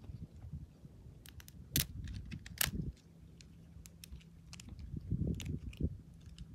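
Dry twigs clicking and crackling as they are handled, a scatter of sharp clicks with the loudest about two seconds in, over a low rumble.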